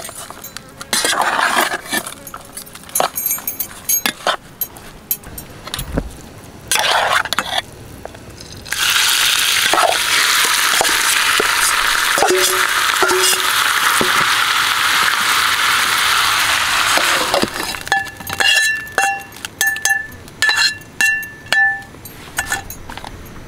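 A metal spatula scrapes and knocks as it stirs raw keema mixture in a steel pot. About nine seconds in, there is loud sizzling as the mixture is poured into a pan of hot oil on a small gas-canister stove; this lasts about eight seconds and stops suddenly. In the last seconds, a series of ringing clinks comes from the metal spatula striking a steel pot.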